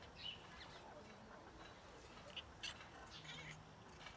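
Faint birds chirping in the background: a few short, high chirps scattered over near-quiet outdoor air.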